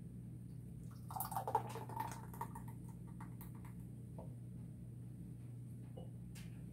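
Thick barbecue sauce being poured from a pitcher through a canning funnel into a glass canning jar: a stretch of liquid filling with small clicks about a second in, then scattered soft drips and clicks, over a steady low hum.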